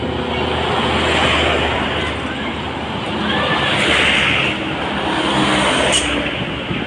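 Road traffic passing close by: a steady rush of engines and tyres that swells about a second in and again about four seconds in as vehicles go past.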